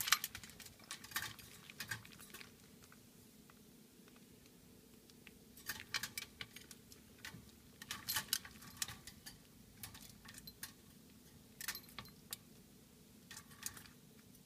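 Black-capped lory bathing in its water dish, splashing in short bursts every few seconds with quiet gaps between.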